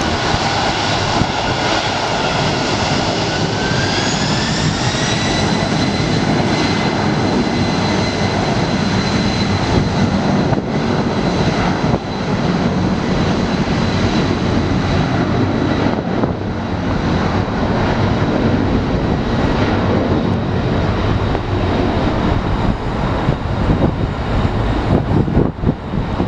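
Boeing 767-300ER freighter's two turbofan engines spooling up to high thrust on the takeoff roll: a rising whine over a loud roar about three seconds in, then a steady roar and whine.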